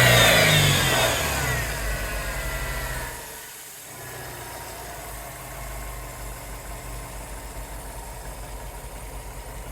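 An engine runs for a buyer's sound check. Its revs fall away over the first three seconds, then it settles into a steady idle.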